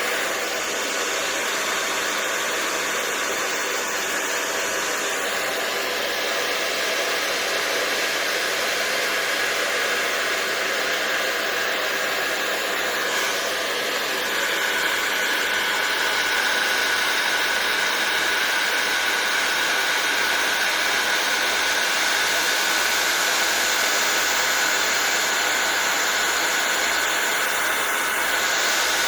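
Hair dryer fitted with a nozzle attachment running continuously, a steady rush of air with a faint whine in it. It grows a little louder about halfway through.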